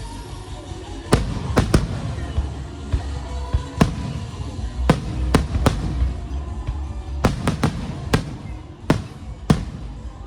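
Fireworks going off: about fourteen sharp bangs at irregular intervals, several in quick clusters, over a steady low rumble.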